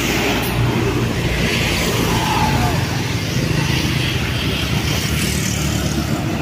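A large road vehicle's engine running steadily as it passes on the road, a low engine hum over tyre and traffic noise.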